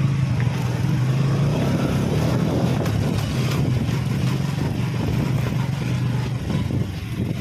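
Motorcycle engine running at a steady speed, with an even low drone.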